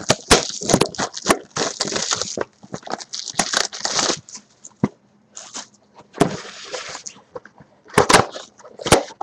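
Sports-card packaging being torn open: repeated ripping and crinkling of wrapper and box packaging, with sharp snaps and clicks, in several bursts of a second or two each.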